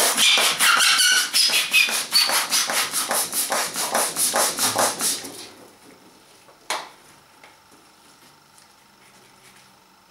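Plastic hand balloon pump worked rapidly, about five strokes of rushing air a second with squeaky rubbing of latex, as it inflates a clear latex balloon with smaller balloons inside; the pumping stops after about five and a half seconds, followed by one sharp click.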